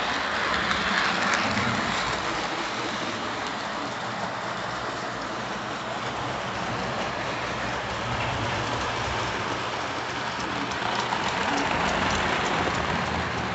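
Lionel O scale model trains running on FasTrack: a steady rolling noise of metal wheels on the track, a little louder near the end as cars pass close by.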